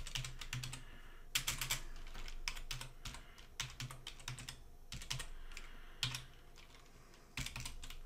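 Typing on a computer keyboard: irregular runs of keystrokes separated by short pauses, with a longer pause near the end before a last few keys.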